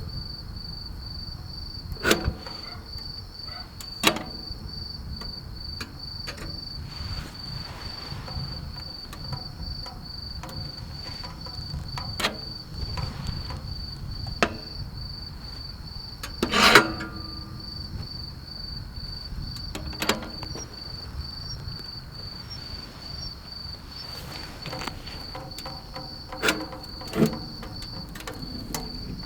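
A cricket chirping in a steady, fast high-pitched trill. Several sharp knocks and clicks fall through it, the loudest a little past halfway.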